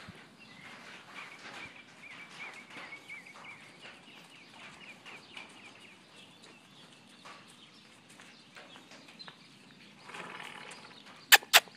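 Horses' hooves stepping on a dirt yard, soft and irregular, with a bird chirping repeatedly in the background through the first half. Two sharp knocks near the end are the loudest sounds.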